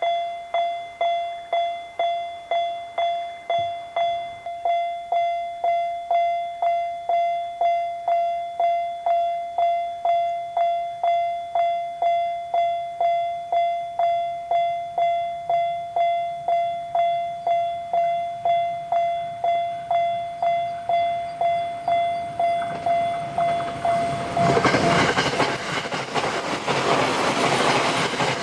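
Japanese railroad-crossing warning bell (the "kan-kan" alarm) striking a single repeated tone about twice a second. About 24 seconds in, a JR Sobu Line train passes through the crossing with loud running noise and wheel clatter over the rails.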